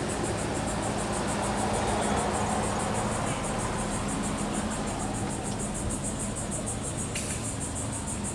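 Outdoor background of insects calling in a fast, even pulse, over a steady low hum of vehicles.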